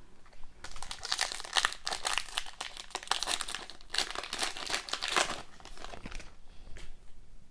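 Foil wrapper of a 2020-21 SP Authentic hockey card pack crinkling and tearing as it is ripped open by hand, from about half a second in until about five seconds in. After that, quieter handling of the cards.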